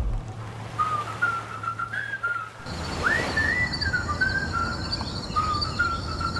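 A whistled tune: a short melody of gliding notes, the same phrase repeated about three times. Under it a low steady hum stops a little under three seconds in, and a faint high rapid pulsing takes its place.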